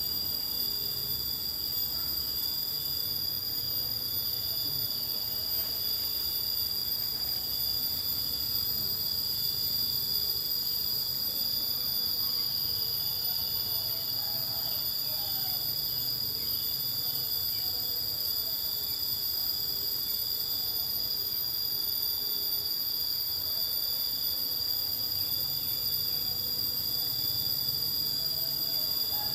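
Steady insect chorus: several high-pitched trills sounding together without a break.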